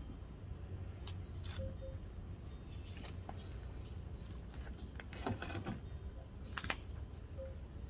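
Dry coconut husk fibre and leaf sheath crackling and snapping as it is cut and peeled from the base of the shoots with a small knife. Scattered sharp crackles, the loudest clusters about five and six and a half seconds in, over a steady low rumble.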